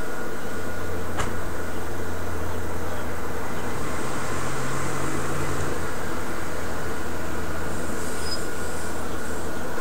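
Steady hum and hiss with a single click about a second in; a car drives slowly through the parking lot near the end.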